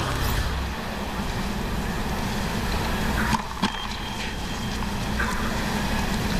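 Tennis match broadcast audio: a steady hum of static and stadium crowd noise, with a few sharp racket strikes on the ball, one just after the start and two more about three seconds in.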